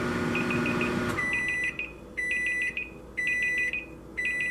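Smart microwave oven humming as it runs, then shutting off with a click about a second in, followed by four rounds of high electronic beeps about a second apart: the end-of-cycle alert.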